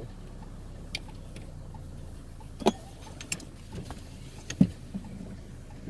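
Steady low vehicle rumble, with a few sharp clicks and knocks scattered through it.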